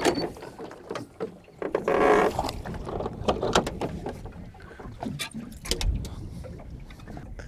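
Water lapping against a small aluminium boat's hull, with scattered knocks and clicks from gear in the boat and a brief louder rush of noise about two seconds in.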